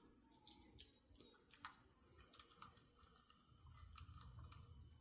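Faint light clicks of small parts of a Chevy TBI injector pod being handled and fitted together, a few scattered in the first half, over a faint low hum.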